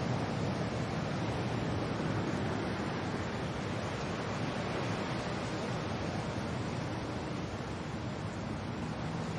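Steady wind and rain: a dense, even rushing noise, heaviest in the low end, with no single gust or drop standing out.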